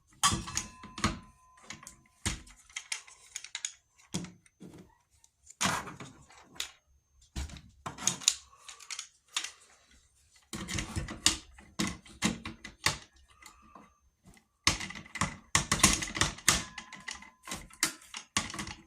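Irregular clicks, knocks and rattles of table-saw parts being handled and fitted together by hand, coming in clusters with short pauses between them.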